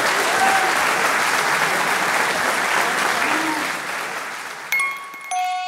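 Boxing-hall audience applauding a bout's winner, thinning out after about four seconds. Clear chiming music notes come in near the end.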